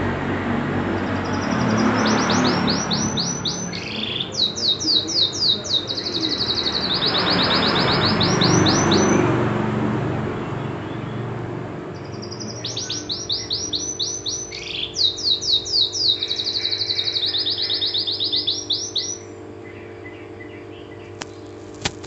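Domestic canary singing in fast high trills of about eight to ten repeated notes a second, in two long bouts with a short pause between, stopping about 19 seconds in. A loud rushing noise sits under the first half of the song.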